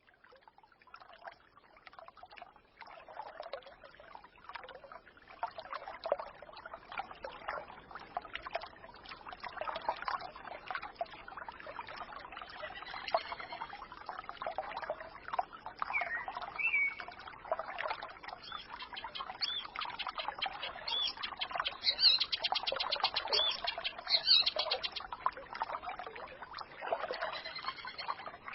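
Small forest stream trickling and gurgling, fading in over the first few seconds, with songbirds chirping now and then and a fast high trill about two-thirds of the way through.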